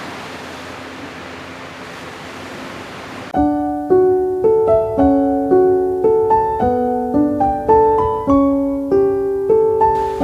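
An even rush of sea surf for about three seconds, then a sudden cut to soft solo piano music, single notes struck one after another and left to ring out.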